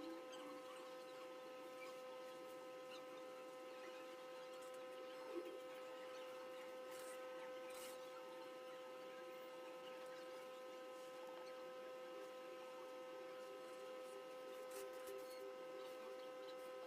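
Faint steady electrical hum, one constant pitched tone with overtones, with a few faint clicks now and then.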